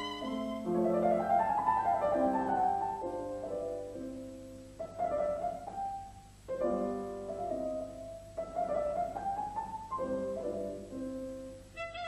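Background piano music: a slow melody of held notes in short phrases.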